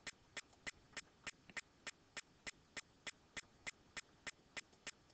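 Computer mouse clicking faintly and evenly, about three clicks a second.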